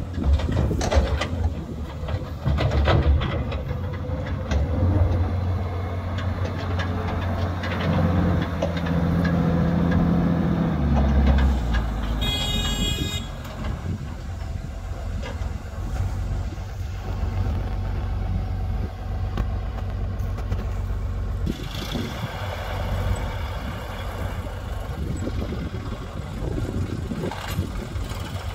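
Diesel engine of a wheel loader running steadily while it works a sand pile, rising in pitch for a few seconds around eight to eleven seconds in. A short, high beep sounds about twelve seconds in.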